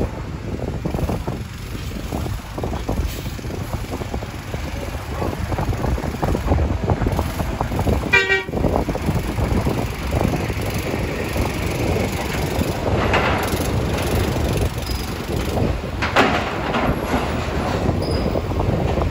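Low vehicle rumble under wind buffeting the microphone, with one short horn toot about eight seconds in.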